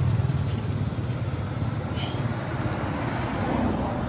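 A motor vehicle's engine and road noise passing nearby, a low rumble that slowly fades away.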